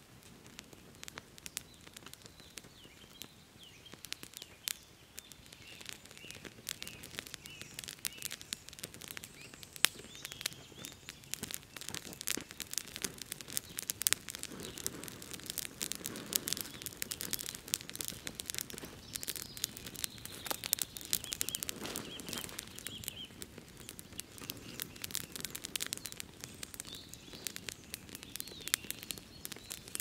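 Wood fire crackling and popping, with small birds chirping in the background.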